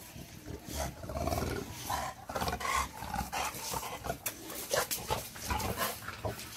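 Olde English Bulldogges making a series of short, irregular vocal noises at close quarters as the male noses the female, who is in heat.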